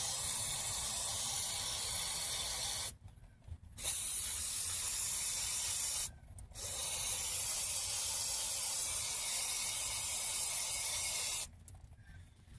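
Aerosol parts cleaner (brake clean) spraying in three long hissing bursts with two short pauses between them; the spraying stops about a second before the end.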